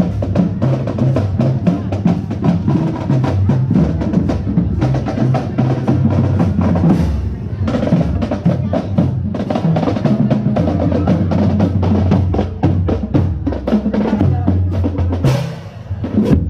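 Percussion-heavy music: rapid snare drum strokes and rolls over bass drum, played at a quick steady pace.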